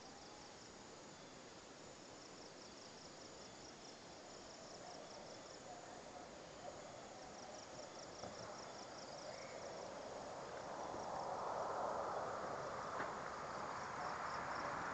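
Crickets chirping in regular pulsed trills, faint under a low hiss that swells louder over the last few seconds.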